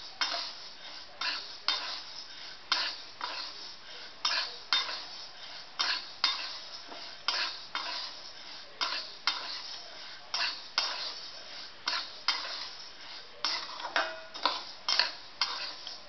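Steel spatula scraping and stirring split dal as it dry-roasts in a metal kadhai, in short strokes about twice a second with the dry grains rattling against the pan.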